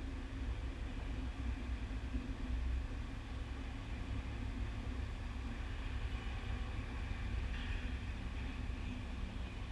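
Ice hockey arena ambience during play: a steady low rumble and hum with an even background hiss, and a brief, brighter scraping-like noise about three quarters of the way through.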